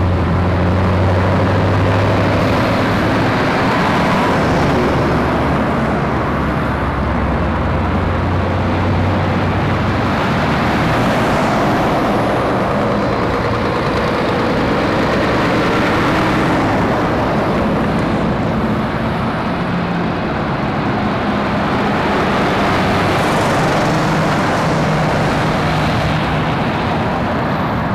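Heavy lorries' diesel engines running as they drive round a roundabout and pass close by, with tyre and road noise. A deep engine drone is strongest in the first ten seconds, and later engines pass at a different pitch.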